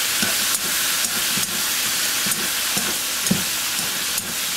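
Shrimp, squid and vegetables sizzling steadily in a hot wok over high heat, freshly seasoned with sauce, while being tossed with a wooden spatula and chopsticks. Light knocks of the utensils against the pan come about twice a second.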